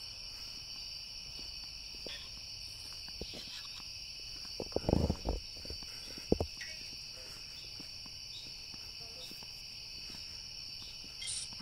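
A steady, high, continuous chorus of night insects. A few dull thumps come about five seconds in and once more just after six seconds.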